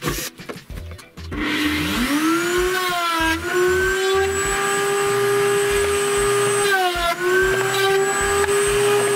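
Zubr ZF-1900 router in a router table spinning up with a rising whine about a second and a half in, then running steadily at speed. Its pitch sags briefly twice as the cutter bites into a wooden workpiece fed along the fence. A few short bursts from a cordless drill-driver come in the first second.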